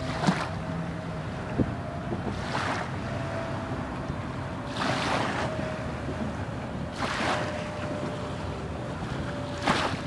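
Small ripples lapping onto a sandy riverbank in soft hissy swells about every two and a half seconds, over a steady low motor hum.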